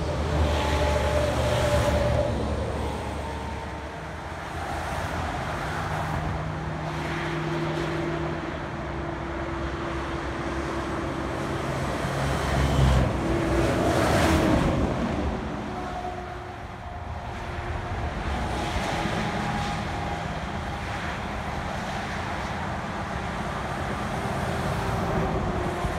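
Highway traffic passing below: a school bus and then diesel tractor-trailers go by, engine drone and tire noise swelling and fading as each one passes. The loudest pass comes about 13 to 15 seconds in.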